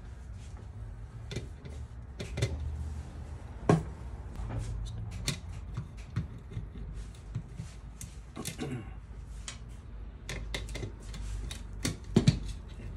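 Irregular small clicks, taps and knocks of screws, a screwdriver and the plastic and metal parts of a laser printer fuser unit being handled on a table, a few of them sharper knocks.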